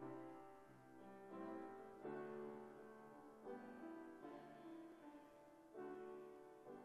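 Quiet, slow piano music: chords struck about every second or so and left to ring and fade.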